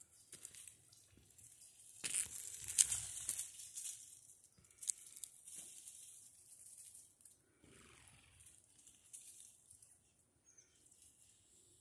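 Dry rustling and crunching in a few uneven bursts, loudest about two to four seconds in, with smaller bursts later.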